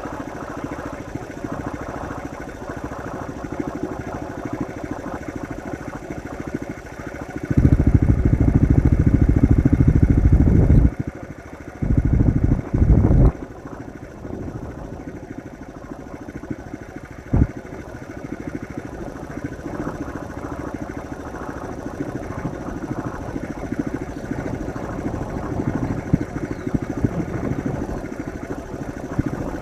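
A small engine running steadily, of the kind of a farm motorbike used to move dairy cows. There are two loud low bursts, one about 8 seconds in lasting some three seconds and a shorter one about 12 seconds in, and a single knock near 17 seconds in.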